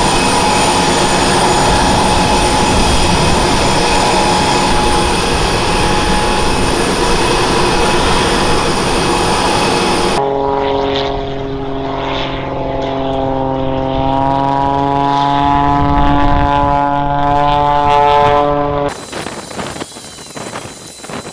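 Aircraft engine noise, loud: a steady rush with high whining tones for about ten seconds, then, after a sudden change, a droning hum of steady stacked tones that drift slightly upward. Near the end it changes again to a softer rushing noise with scattered clicks.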